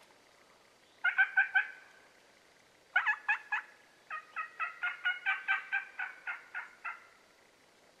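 Wild turkeys calling: a short run of rapid notes about a second in, another near three seconds, then a longer run of about fifteen evenly spaced notes.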